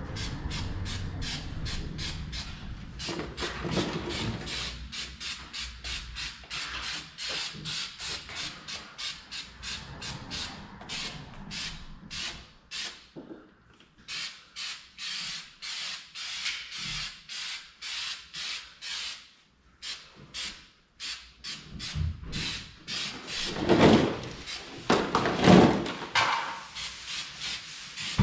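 Aerosol spray can being shaken, its mixing ball rattling in quick, even strokes about four to five a second, in long runs with short breaks. A few louder knocks come near the end.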